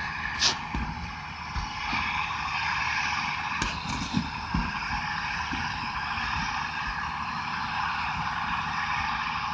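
Hyundai tracked excavator fitted with a harvester processor head, its diesel engine and hydraulics running steadily, with a few light knocks.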